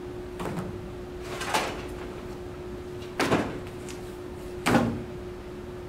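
Papers and a booklet handled at a desk: four short rustling and knocking sounds, spread about a second apart, as the booklet is laid down and a folder of papers is picked up, over a steady hum.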